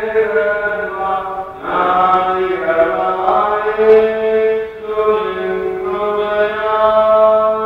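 Clergy chanting a slow liturgical chant in long held notes, with short breaks between phrases every three seconds or so.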